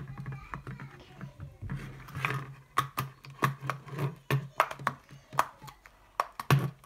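Silicone bubbles of a pop-it fidget spinner toy being pressed through one after another: a string of short pops, unevenly spaced at about two a second.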